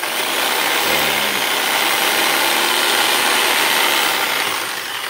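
Ozito JSG 442VK variable-speed jigsaw running free with no blade fitted, a loud steady motor-and-plunger noise that eases a little near the end and then picks up again. The long-unused motor still runs strong, with no sparking at the armature.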